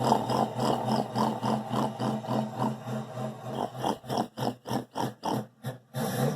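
A man's voice imitating a diesel engine with a loping idle: a steady rhythm of low pulses, about three a second. The pulses turn choppy and separate about four seconds in, then stop just before the end.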